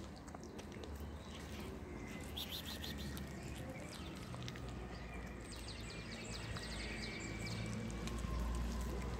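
A tabby kitten chewing raw fish: bursts of quick wet clicks, heaviest about two and a half seconds in and again around six seconds. Birds chirp faintly in the background.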